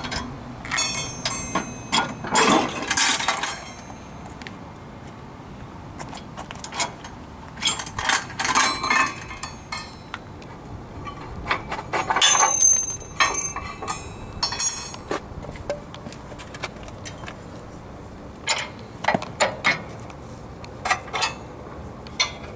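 Pins being pulled from the mounts of a Z-Plug aerator head: several bursts of clinks and knocks, with quieter gaps between.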